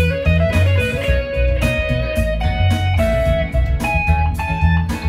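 Electric guitar, a Fender Stratocaster, playing an improvised single-note lead line in Mixolydian mode. Held notes step up and down in pitch, with a few slight bends, over a steady low bass pulse.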